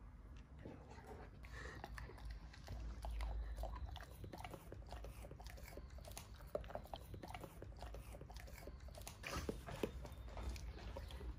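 Golden retriever chewing dry hay: soft, irregular crunching and crackling, with a louder burst about nine seconds in.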